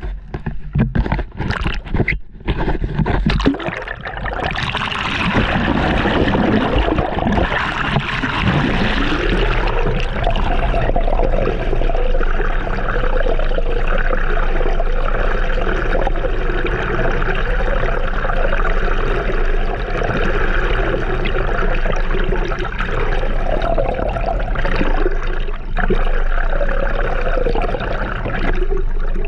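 A few sharp knocks, then water rushing and gurgling steadily.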